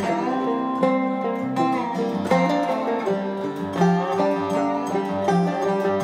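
Background music played on plucked string instruments, picked notes in a quick, steady rhythm.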